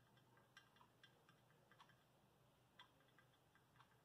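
Faint, irregular light clicks of a small knife tapping on a glass board as it marks thin rolls of cold porcelain clay, a few clicks a second at uneven spacing.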